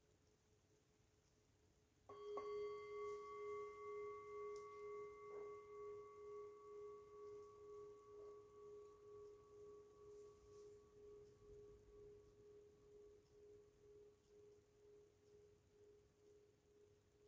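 A brass singing bowl is struck once about two seconds in. It rings with a low main tone and fainter higher overtones, wavering in a slow beat as it gradually fades.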